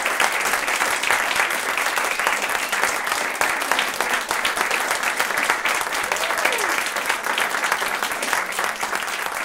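A small audience applauding, many hands clapping together, easing off slightly toward the end.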